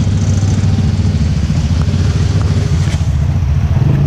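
ATV engine running steadily under way off-road, a rough low engine note with a haze of wind and tyre noise over it.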